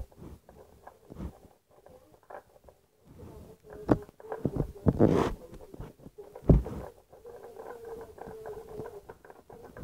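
Light tapping, scraping and rustling from handling a homemade toy car wash model and a toy car, with a louder thump about six and a half seconds in. A faint steady hum runs through parts of the second half.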